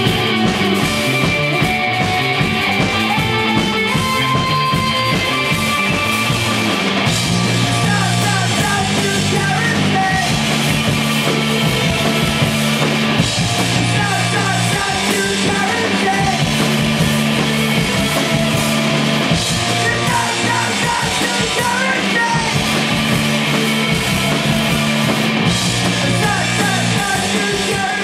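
Live rock band playing loudly through a camcorder's microphone: distorted electric guitars, bass and drums, with a male voice singing from about a quarter of the way in.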